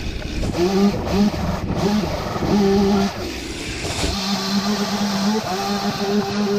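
Two-stroke chainsaw running at high revs in long bursts while cutting into deck timbers, the engine note sagging and recovering under load. It drops back briefly about three seconds in before revving up again.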